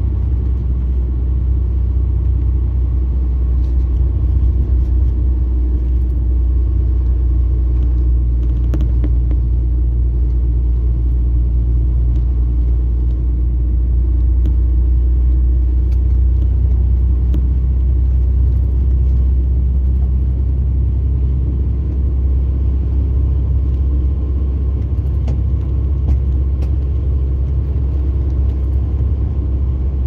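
Mercedes-Benz 2436 coach's diesel engine and running gear heard from inside the cabin as a steady low drone while the bus drives along, with a few faint clicks and rattles.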